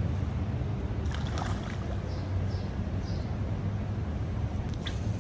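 Steady low rumble of water rushing over the Watertown Dam.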